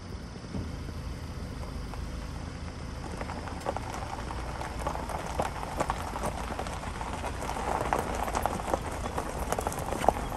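Footsteps crunching on a crushed-gravel trail, irregular and getting louder from about three seconds in, over a steady low rumble of wind on the microphone.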